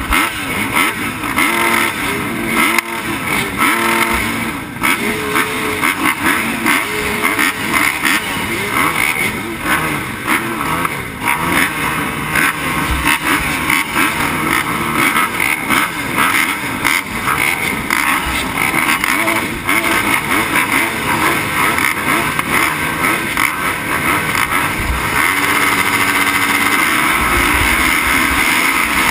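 A field of motocross bikes revving at the starting gate, many engines overlapping and rising and falling in pitch. The sound grows louder and steadier in the last few seconds.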